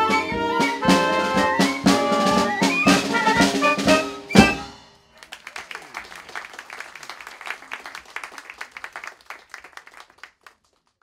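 Ragtime orchestra of brass, strings and drums playing, ending on a final accented chord with a loud drum hit about four seconds in. Audience applause follows and fades out near the end.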